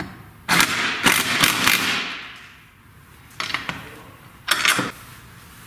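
Ratcheting wrench clicking in quick runs as it turns a nut on a bracket bolt: one long run about half a second in, then two short runs.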